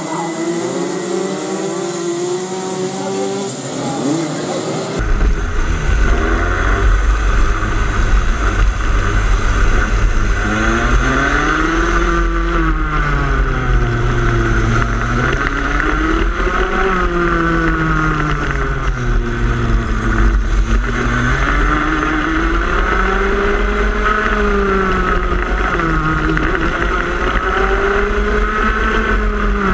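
Go-kart engines running at racing speed. For the first few seconds several karts are heard passing. Then, about five seconds in, the sound is from onboard one kart: its engine pitch climbs and falls back every few seconds, lap after lap, over a constant low rumble.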